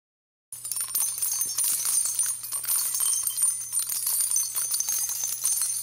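A continuous bright jingling, as of small bells, starting out of silence about half a second in and running dense with many tiny clicks.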